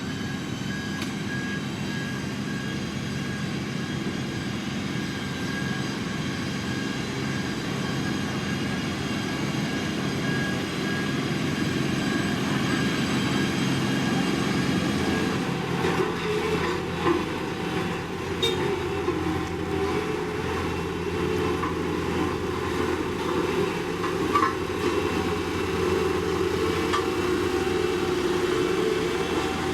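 Heavy diesel road-construction machinery running steadily, with a pulsing high beep over the first half like a reversing alarm. After about halfway the engine note changes and several sharp metallic knocks and clanks come through.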